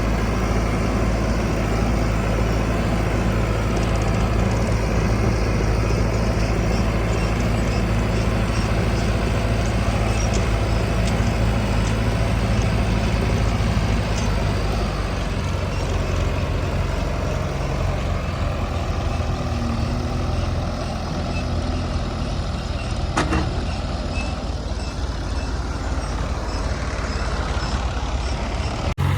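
Diesel engines of a backhoe loader and tractors running steadily under work, with the engine note shifting about halfway through.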